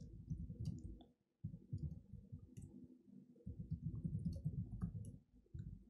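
Typing on a laptop keyboard, picked up through the lectern: irregular quiet key clicks over dull low thuds, in short runs with brief pauses, the first about a second in.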